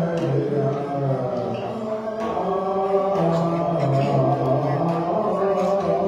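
Buddhist monks chanting together in low men's voices, holding long notes that step up and down in pitch.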